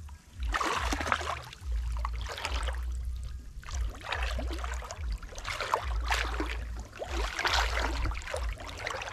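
Pond water splashing and sloshing in repeated bursts, about one every second or two, with a low rumble under each burst.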